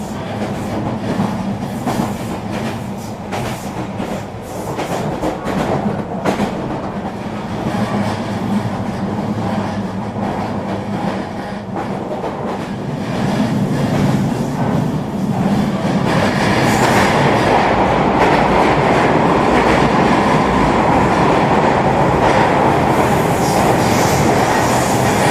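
Regional electric train running on the rails: a steady rumble with wheel clicks over the track. About two-thirds of the way through, the running noise grows louder and stays up.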